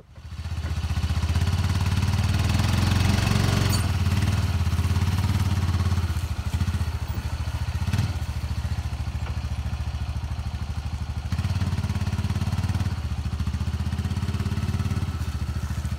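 A motor vehicle's engine running steadily at low speed, a little louder in the first few seconds.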